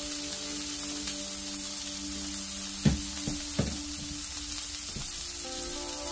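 Food sizzling steadily in a Stargazer cast iron skillet, with three sharp knocks about halfway through.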